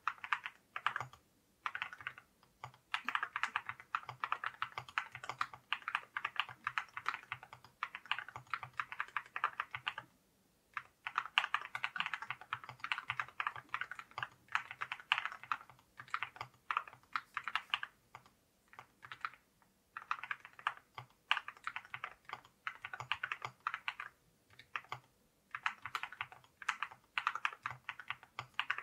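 Typing on a JRIS 65 mechanical keyboard fitted with ceramic keycaps: quick runs of crisp keystrokes with short pauses, the longest about ten seconds in.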